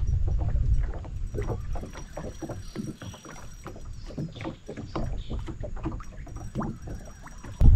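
Water lapping and slapping against a small aluminium boat's hull in quick irregular splashes. A low wind rumble on the microphone fades out about a second in and comes back suddenly near the end.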